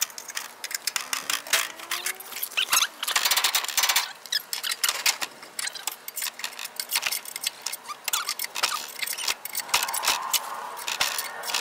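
Steel scissor jack being cranked with its bent-rod handle: a rapid, irregular run of metallic clicking and rattling, with a faint rising squeak about a second in.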